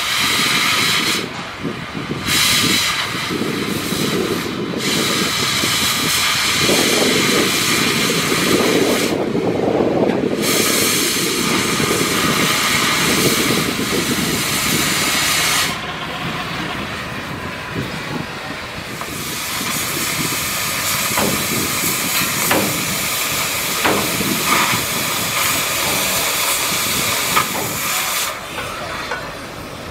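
Oxy-fuel cutting torch cutting through rusted steel plate: a steady, loud hiss of the gas jet, its highest part dipping briefly several times.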